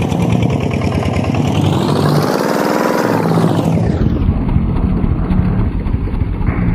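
Tractor engine running hard and revving, its pitch climbing to a peak about three seconds in and then falling back.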